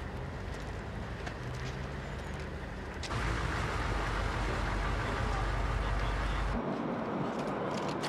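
A vehicle engine running with a steady low hum amid outdoor noise, with faint voices in the background. The sound jumps louder and heavier about three seconds in and changes again near the end, as the footage cuts between shots.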